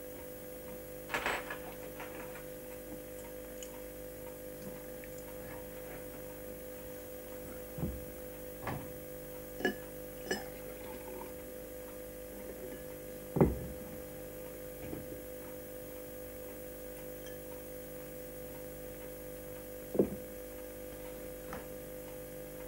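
Scattered light clinks and knocks of glassware and crockery being handled on a wooden bar counter, over a steady hum. The loudest knock comes about thirteen seconds in, and a sharp one about twenty seconds in.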